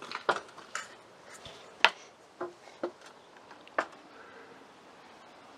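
Irregular light knocks and clicks as a large solar panel is handled and lifted up against a trailer, with one sharper knock about two seconds in.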